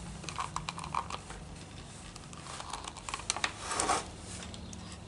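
Plastic bump head of a string trimmer being handled, pushed and turned: a run of small clicks and scratches, with a brief louder rustle about four seconds in.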